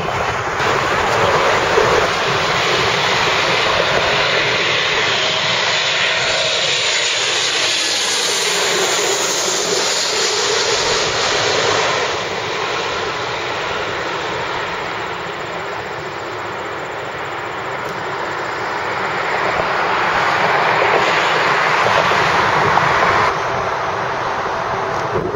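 Jet airliner engines in a steady, loud roar as the aircraft move on and just above the runway. An abrupt change about twelve seconds in marks a new clip, and the roar then swells and fades. Another abrupt change comes near the end.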